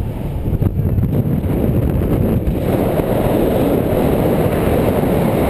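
Wind buffeting the microphone of a camera carried on a tandem paraglider in flight: a steady, low rumble that grows stronger about halfway through.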